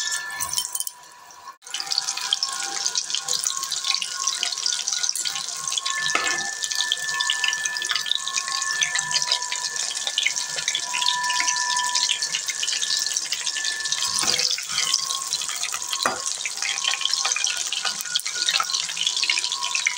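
Battered chicken pakoras deep-frying in hot oil in a kadai: a steady crackling sizzle full of fine pops.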